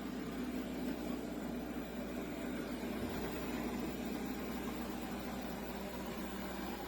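Shark robot vacuum running, a steady whir of its suction motor and brushes with a low hum.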